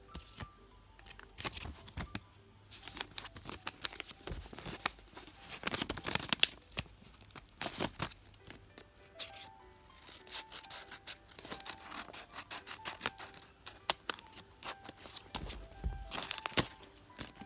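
Packaging being torn and crinkled open in irregular bursts of crackling and rustling, over quiet background music with short soft notes.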